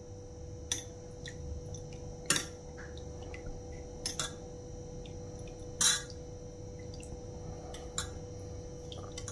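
Light clinks of a metal spoon against an aluminium saucepan as melted chocolate is spooned over a skewered piece of frozen bread, a handful of them a second or two apart. A faint steady hum runs underneath.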